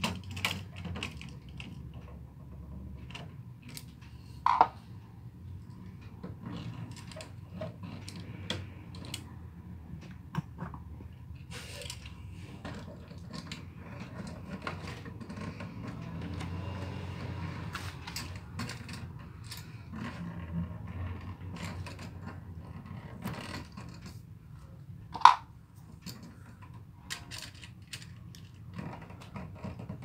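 Screwdriver and metal receptacle parts being handled while a wall outlet is wired and fitted into its metal box: scattered small clicks, taps and scrapes. Two sharp metallic clinks with a brief ring stand out, one early and one near the end.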